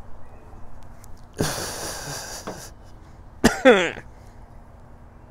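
A man blowing out a lungful of pipe smoke in one long, forceful breath, then a sharp click and a short hoarse vocal sound that falls in pitch, like a cough or gasp after the hit.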